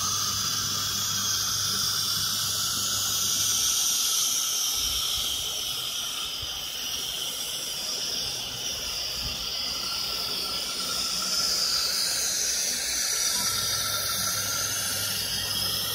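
Spindle of a FORSUN FS1630ATC CNC wood router with automatic tool changer running: a steady high whine over a strong hiss, the pitch sagging a little past the middle. A low hum joins it in the first few seconds and again near the end.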